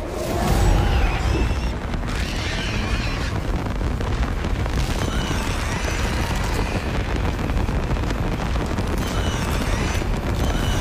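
Horror film soundtrack: dense score and sound effects over a heavy low rumble, with booms and gliding, wailing tones.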